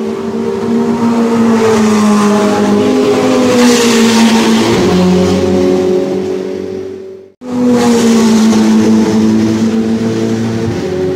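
Ferrari Challenge race car's V8 engine running hard past the grandstand, its pitch wavering and the sound swelling to its loudest about four seconds in. The sound cuts out abruptly about seven seconds in, then returns straight away with a falling pitch.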